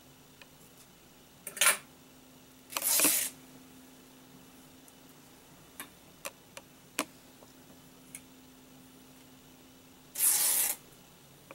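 Scissors cutting Leukotape lengthwise into strips. There are three short rasping cuts through the stiff tape, about two seconds in, three seconds in and near the end, with a few light clicks of the blades in between. A faint steady hum runs underneath.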